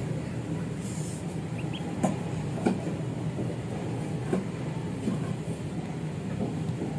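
Steady low hum, with a few sharp taps of chicks pecking feed crumbs off the floor and a couple of faint, short high peeps.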